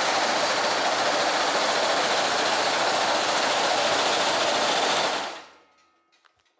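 Reciprocating hammer running, its die hammering a sheet of woven stainless steel mesh to raise an accented center section for a car grill. The machine stops a little after five seconds in, leaving a few faint clicks.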